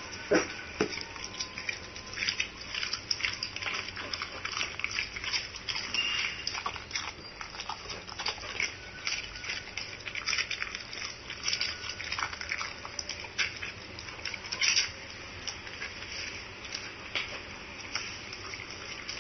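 Siberian husky chewing and crunching raw fish from its bowl, with many irregular wet crunches and clicks, a few louder ones near the start and about two-thirds through.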